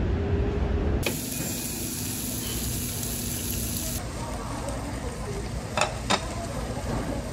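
A low rumble for about the first second, then meat sizzling on a Korean barbecue table grill as a steady hiss, with two short sharp clicks near the end.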